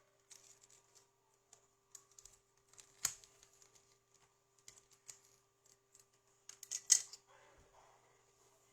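Small clicks and light scraping from hands and tools working on a plastic video cassette during a repair, with one sharp click about three seconds in and a quick run of louder clicks near seven seconds.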